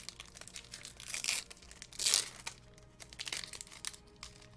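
Foil wrapper of a Pokémon card booster pack crinkling as it is torn open, with louder rips about a second in and again at about two seconds.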